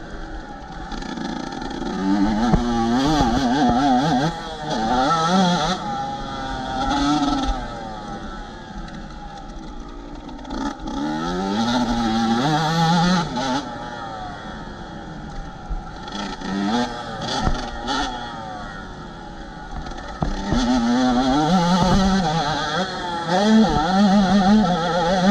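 Yamaha YZ125 single-cylinder two-stroke motocross engine under hard riding, revving up and falling off again and again as the throttle is worked and gears change. The longest high-rev stretches come near the start and near the end.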